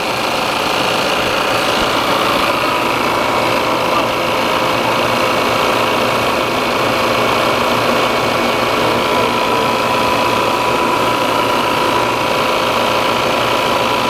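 Refrigerant recovery machine running steadily, its compressor pumping refrigerant out of the air conditioner into the recovery tank: a steady machine hum with a faint whine.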